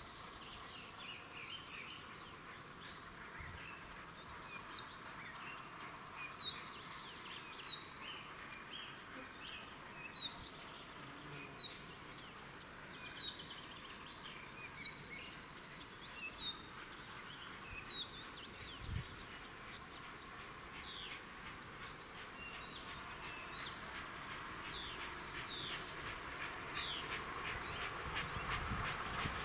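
Songbirds chirping in short repeated calls over a faint steady noise that slowly grows louder toward the end: the approach of steam locomotive L-5248, a Soviet L-class 2-10-0, with its train.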